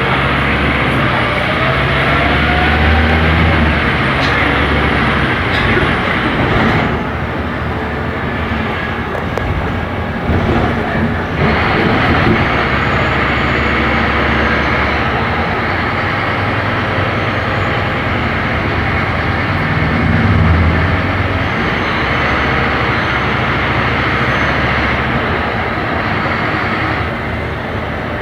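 Scania K270IB city bus with a ZF automatic gearbox running under way. The engine note rises in pitch over the first few seconds as it accelerates, then eases and picks up again as the load changes, with a faint high whine over it.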